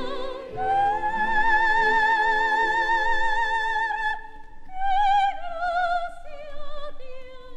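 Female soprano singing a zarzuela waltz-romanza with a chamber orchestra, from a 1955 LP recording. She holds one long high note with wide vibrato for about three and a half seconds, then sings a shorter phrase that steps downward.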